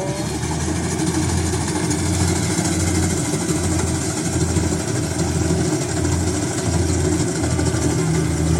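A large engine running steadily at idle, with its low hum swelling and easing about once a second.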